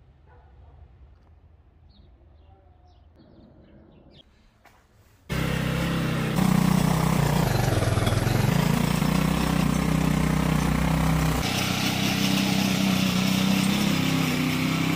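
Small gas-powered garden tiller with a Viper engine running under load, its tines churning dry dirt. It cuts in suddenly about five seconds in after quiet outdoor ambience, and its engine note sags and recovers a couple of seconds later as the tines bite.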